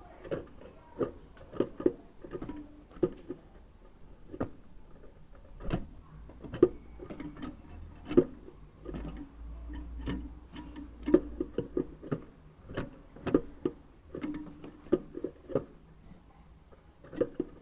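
Irregular clicks and taps of a young European goldfinch hopping and climbing about its wire cage, landing on the perches and bars, at times several in quick succession.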